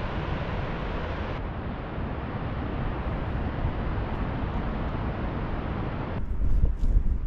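Steady rushing noise of wind on the microphone mixed with breaking surf. It changes abruptly about a second and a half in, and again near the end, where a lower, gustier buffeting grows louder.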